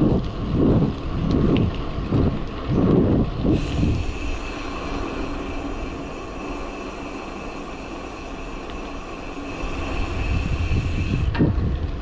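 Wind buffeting a moving bicycle's camera microphone, heard as gusty low rumbles over road noise. For most of the middle the rumble drops away to an even, higher hiss with a thin steady whine, and the gusty rumble returns near the end.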